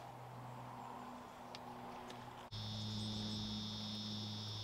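Faint, steady high-pitched buzzing of a cicada chorus, which comes in suddenly about two and a half seconds in, over a low steady hum.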